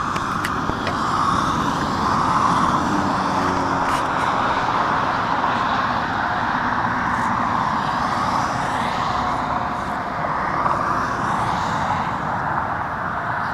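Yamaha XTZ 750 Super Ténéré's parallel-twin engine running steadily through its original stock silencer.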